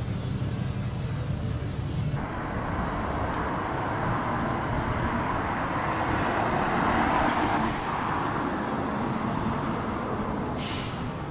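Street traffic. A low engine rumble gives way to a vehicle passing with tyre noise that swells to its loudest about seven seconds in and then fades. A brief hiss comes near the end.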